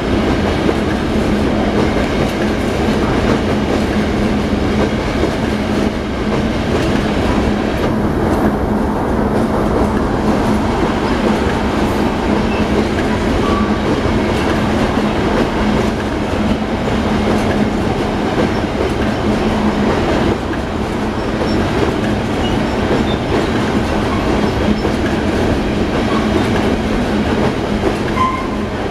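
Union Pacific freight train of covered hopper cars rolling over a steel truss bridge: the wheels and cars make a loud, steady rumble, with a steady low hum underneath it.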